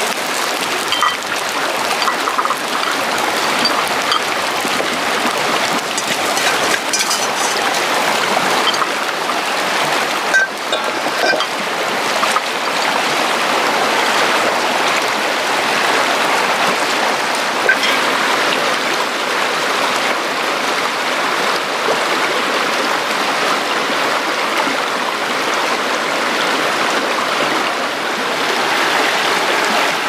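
Mountain stream running over rocks: a steady rushing water noise, with a few brief light clinks of a metal ladle on the wok and plate.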